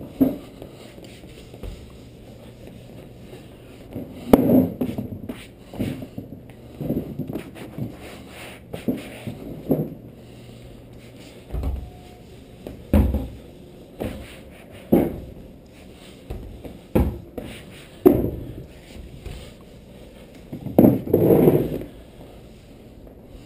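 A cloth wiping down a table top, heard as short, irregular scuffs and knocks about every second or two, with a longer scuff near the end.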